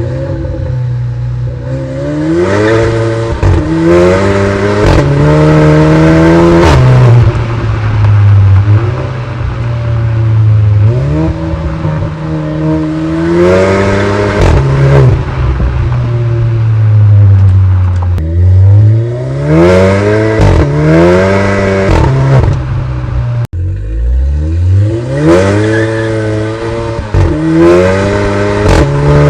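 Audi A3 fitted with a sport exhaust, its engine revving hard again and again: the pitch climbs in steps and falls back several times, with a few sharp pops where the revs drop.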